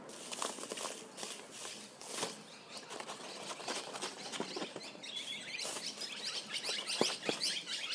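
Baking soda poured from its box through a rolled paper funnel: a faint rustling patter of powder and paper with scattered small clicks. From about five seconds in, quick high chirping joins it.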